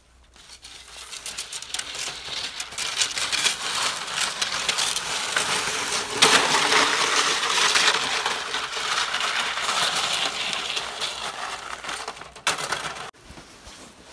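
A ski sled's runners scraping and crackling over icy, hard-packed snow, building up over the first couple of seconds as it gathers speed and loudest around the middle. The sound cuts off abruptly about a second before the end.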